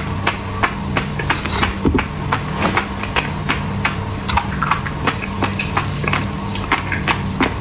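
Refrigerator humming steadily, under many quick sharp taps and clicks, several a second.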